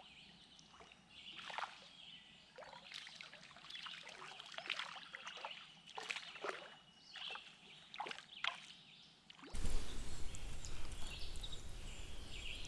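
Short, irregular splashes and sloshing of water as a small hooked bluegill thrashes at the surface while it is pulled in on a handline. About three-quarters of the way through, this gives way to a steady outdoor hiss with faint bird calls.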